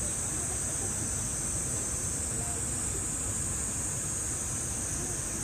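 Steady high-pitched drone of insects, unchanging throughout, over a low rumble of background noise with faint distant voices.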